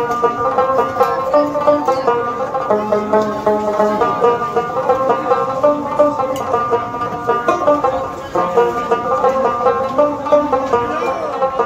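Background music: a plucked-string instrumental tune with quick, steady notes.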